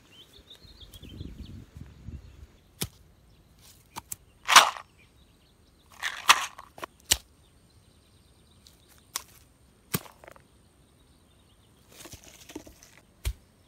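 Close handling noises: a string of sharp clicks and short scraping rustles, the two loudest about four and a half and six seconds in.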